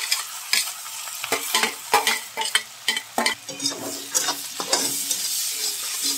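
Chopped onion and green chillies sizzling in hot oil in a kadai as they go in, stirred with a slotted spatula that scrapes and clicks against the pan again and again.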